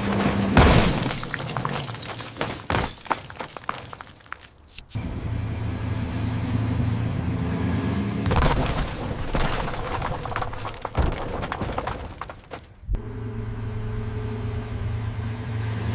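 Car crash sound effects: a car engine hums steadily, then a sudden crash of crumpling metal and shattering glass is followed by a few seconds of clattering debris. This happens twice, about half a second in and about eight seconds in, and the engine hum returns between the crashes and again near the end.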